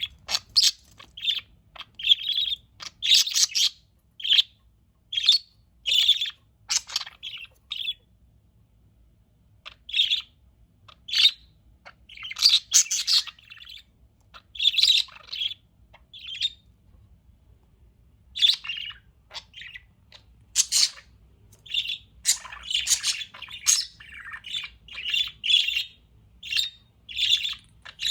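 Pet budgerigars chirping and chattering in short, quick bursts of high chirps, with a couple of brief quiet spells between bursts.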